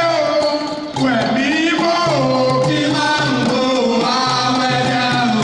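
Singing over instrumental music, the voice gliding through long held notes.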